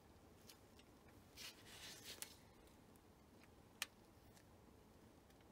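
Faint handling noise from gloved hands turning a Rolleiflex 2.8F twin-lens reflex camera: a brief rustle of gloves against the body, a few tiny clicks, and one sharper click about four seconds in.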